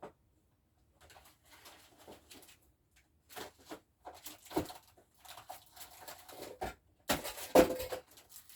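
Irregular rustling, scraping and small knocks of someone rummaging through belongings while searching for something, with a louder clatter about seven seconds in.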